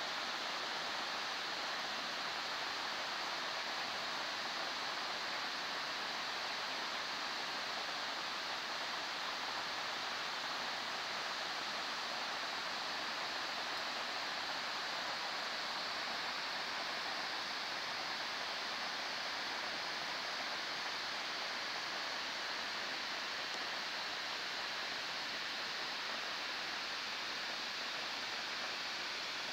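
Steady rush of many waterfalls falling down a cliff face, an even hiss that does not change.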